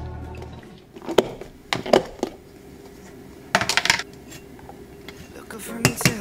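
Sharp clinks and taps of kitchen handling, glass and plastic being knocked as shredded red cabbage goes into a glass measuring cup. There are single clicks about one and two seconds in, a quick run of clicks a little past halfway, and a few more near the end.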